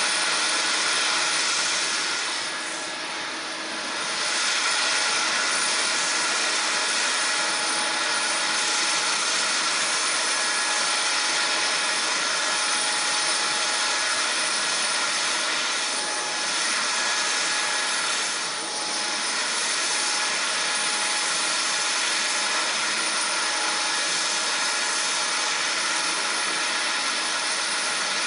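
Jet engines of a Lockheed C-5M Super Galaxy running steadily: its four turbofans give a loud, even rush of noise with a steady whine over it, easing off briefly about three seconds in and again after about sixteen seconds.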